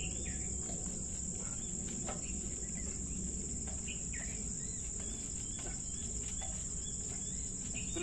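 Insects droning in a steady, high-pitched chorus, with a low background hum beneath.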